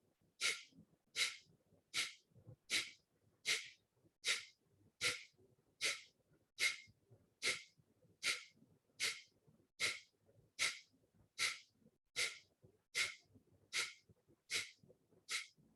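A person doing Kapalbhati breathing: short, forceful exhalations pushed out through the nose by the belly, one sharp hiss about every 0.8 seconds in a steady rhythm, with quiet passive inhalations between.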